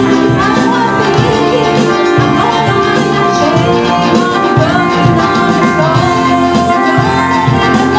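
Live rock band playing: an electric guitar carries the lead with gliding, bent notes over steady drum hits.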